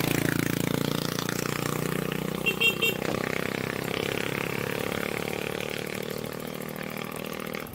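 A motor vehicle's engine running steadily, with a short run of high chirps about two and a half seconds in.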